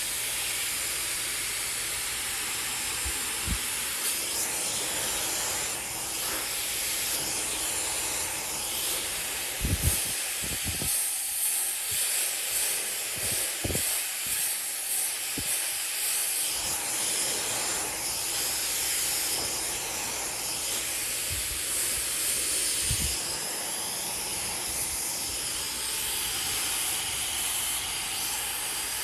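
Handheld hair dryer with a concentrator nozzle blowing steadily, its air rushing through hair held on a round brush. A few soft knocks sound through it.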